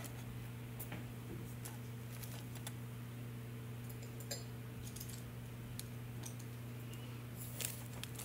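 Faint scattered clicks and taps as a small plastic paint jar is opened and a paintbrush dipped into it, over a steady low electrical hum.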